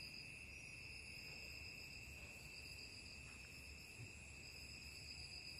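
Faint, steady high-pitched insect chorus, like crickets, with a higher tone above it that swells and fades every second or two.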